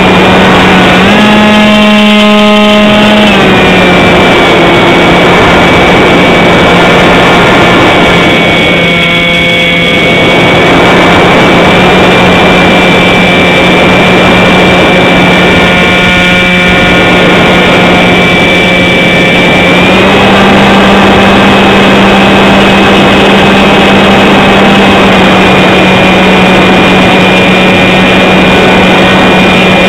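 Model airplane's motor and propeller, heard from a camera on the wing, running steadily under a rush of air noise. The pitch rises briefly about a second in and steps up again at about twenty seconds as the throttle changes.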